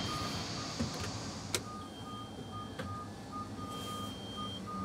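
Electronic warning beeps in the cab of an aircraft pushback tug, over the low hum of its engine. A longer, higher beep about a second long repeats roughly every two seconds, and shorter, lower beeps come irregularly two or three times a second. There are a couple of sharp clicks.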